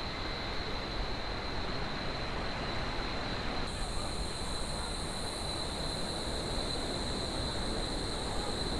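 Steady rush of waterfalls and cascading river water, with a continuous high-pitched insect drone over it. A second, even higher insect buzz joins about four seconds in.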